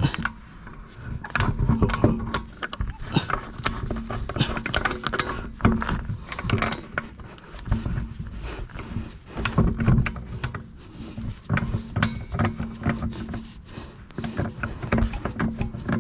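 Irregular metal clanks and knocks of hand tools working on a stuck car wheel during a tire change.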